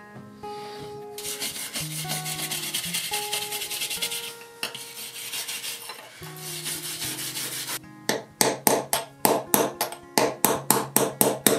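Rusty parts of a Stanley No. 1 hand plane being rubbed and scrubbed by hand to clean them. A stretch of steady abrasive rubbing comes first, then quick back-and-forth strokes, about four or five a second, over the last few seconds. Soft background music with held notes plays underneath.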